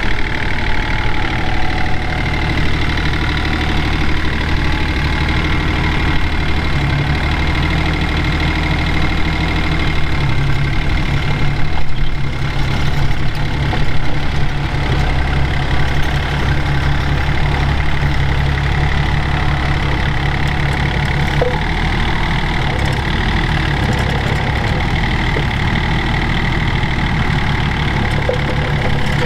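O&K RH 1.17 mini excavator's diesel engine running steadily as the machine drives on its tracks, which have freshly repaired sprockets and rollers. The engine note shifts a couple of times about ten to fifteen seconds in.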